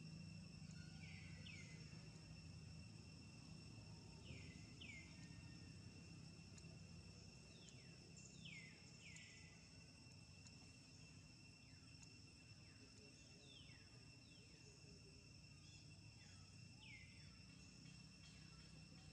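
Faint forest ambience: a steady high insect drone, with a bird repeating short falling whistled notes, mostly in pairs, every few seconds.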